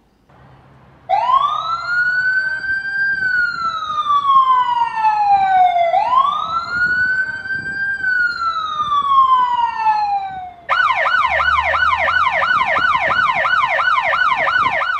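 Emergency vehicle siren sounding a slow wail that rises and then falls away over about five seconds, twice, then switching near the end to a fast yelp of about three cycles a second.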